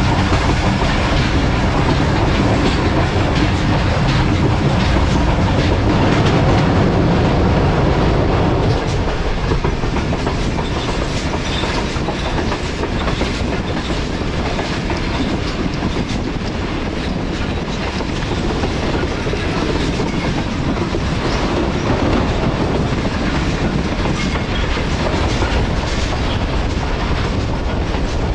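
Passenger train running along the track: a steady rumble of wheels on rail with the clickety-clack of wheels over the rail joints.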